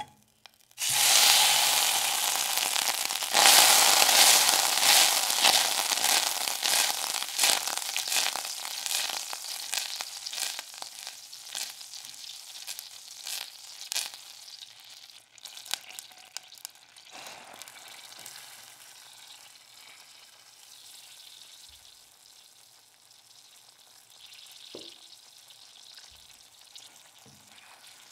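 A block of butter sizzling and crackling as it melts in a hot stainless-steel saucepan, the start of a roux for béchamel sauce. The sizzle starts about a second in, is loudest in the first few seconds, and fades steadily as the butter melts.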